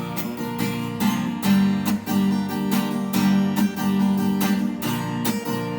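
Acoustic guitar strummed in steady, rhythmic chords, an instrumental passage between sung lines.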